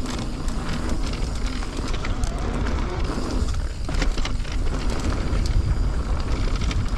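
Mountain bike rolling fast down a loose, rocky dirt trail: tyres crunching over dirt and stones, the bike rattling and clicking over the bumps, and heavy wind rumble on the camera's microphone.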